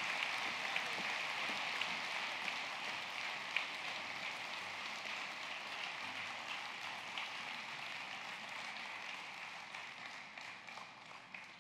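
Audience applauding: a steady wash of many hands clapping that dies away near the end.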